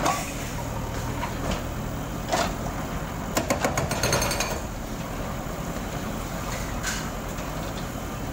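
Diesel engines of JCB backhoe loaders running steadily while their arms break up a concrete house, with scattered knocks of breaking concrete and masonry and a burst of rapid cracking about three and a half seconds in.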